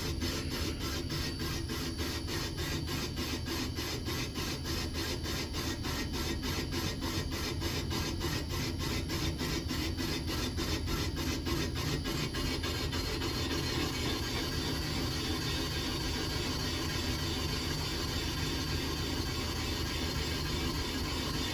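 Single-point cutter on a Comec ACF200 boring machine taking a light pass in a worn transmission bearing bore at 200 RPM. It scrapes in a steady pulse of about three a second, once per spindle turn, because it is not yet cutting all the way around the bore. About twelve seconds in the pulse fades to a steady running hum.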